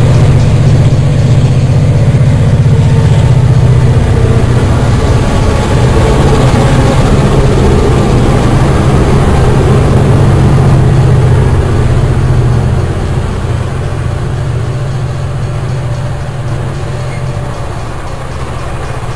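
Diesel locomotives of a multi-engine freight train pass close by at a level crossing, giving a loud, steady, low engine drone. About thirteen seconds in, the drone drops away as the locomotives go by, and the quieter running noise of the grain hopper wagons follows.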